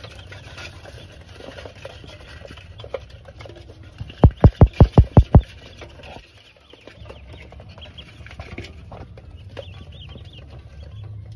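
Pekin ducklings peeping in a metal basin. A little past four seconds a quick run of about eight loud knocks lasts about a second.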